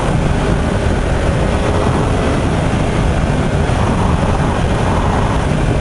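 2016 Yamaha YZF-R1M's crossplane inline-four engine running at a steady cruise, mixed with steady wind noise from riding.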